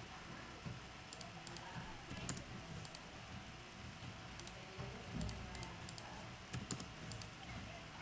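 Faint, scattered clicks of a computer keyboard and mouse, a few keystrokes at a time, as values are typed into fields and confirmed.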